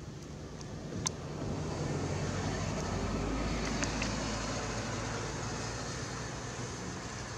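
A motor vehicle passing by, its engine and road noise building to a peak midway and then slowly fading. There is a sharp click about a second in and another near the middle.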